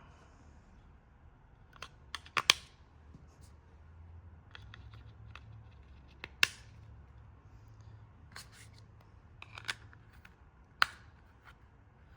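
Scattered sharp clicks and snaps from handling the plastic parts of an LG Magic Remote under repair, a few seconds apart, with some louder ones among fainter taps.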